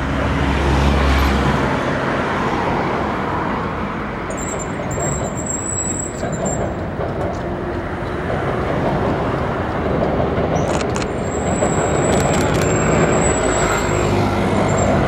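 Steady city traffic noise. A train's rumble builds near the end as an electric train comes onto the steel truss railway bridge. A faint thin high whistle sounds twice.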